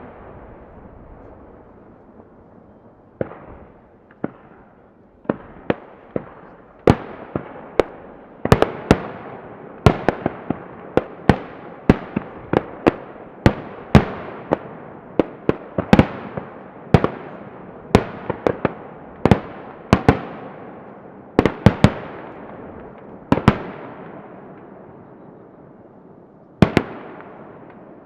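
Aerial firework shells bursting in a rapid series of sharp bangs, each followed by a long echoing tail. After about three quiet seconds the bangs come one or two a second, thin out near the end, and one last bang follows.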